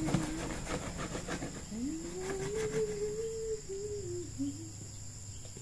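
Kitchen knife cutting through a fish on a plastic cutting board, a quick run of knocks and taps, then a soft wavering tone like a hummed tune. A steady high insect trill runs underneath.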